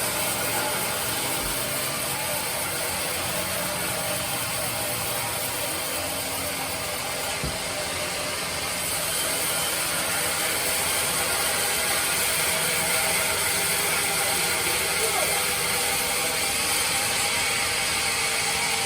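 Sawmill bandsaw machine running steadily, a continuous mechanical noise with a high hiss, as it saws hard teak wood; it grows slightly louder about nine seconds in.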